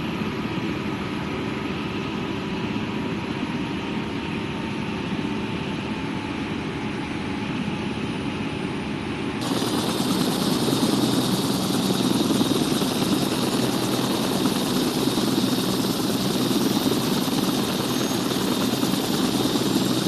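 AgustaWestland helicopter running steadily, its turbine and rotor noise an even rumble with faint steady whines. About halfway through the sound turns suddenly louder and brighter and stays that way.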